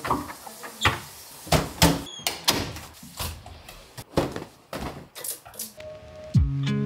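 Doors being opened and shut: a string of separate knocks and clatters, one after another. Guitar music comes in near the end.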